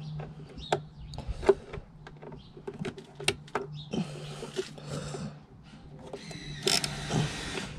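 Screwdriver undoing the screws that hold a mass airflow sensor housing: scattered clicks and knocks of the tool on screws and plastic, with two stretches of scraping, the louder near the end. A low steady hum runs underneath.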